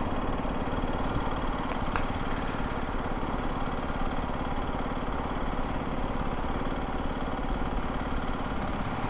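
Aprilia 125 cc single-cylinder motorcycle engine running steadily, with no revving.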